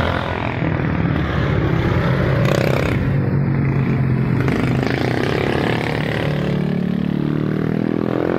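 Road traffic: a motor vehicle's engine running, its pitch rising over the last couple of seconds as it speeds up.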